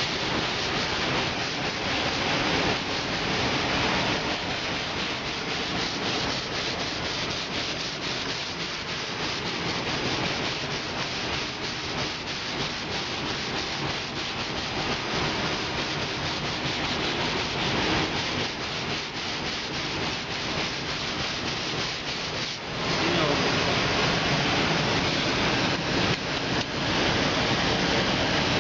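Sanding a car fender, a continuous scratchy abrasive rubbing that gets louder and fuller for the last several seconds. The old coating is being sanded down toward bare metal.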